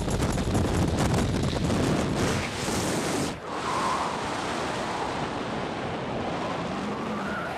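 Airflow buffeting the camera microphone as a parachute opens: loud, rough wind rush. About three and a half seconds in it dips sharply, then settles into a steadier, quieter wind under the open canopy.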